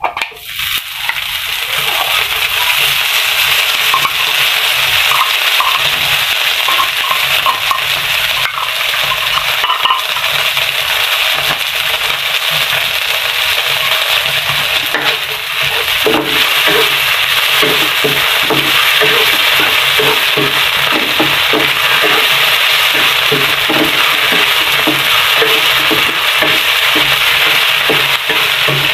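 Ground pork sizzling loudly in hot oil in a frying pan with onion and garlic, the sizzle starting up sharply as the meat goes in. From about halfway through, a spatula stirs and scrapes it around the pan in repeated strokes.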